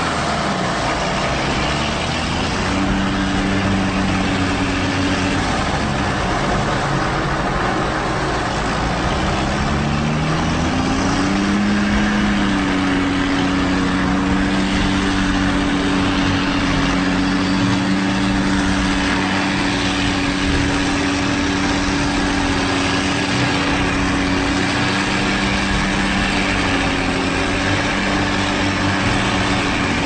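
Heavy farm machinery diesel engine running, its revs falling and rising a few times before holding steady at higher revs for most of the rest.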